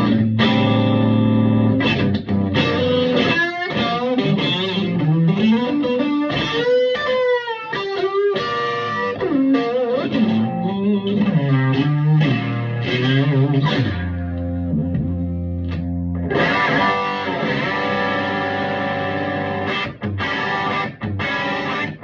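Electric guitar played through a Vintage Sound Amp, single-note lines with string bends and vibrato, then a held chord about two-thirds of the way in before the playing resumes.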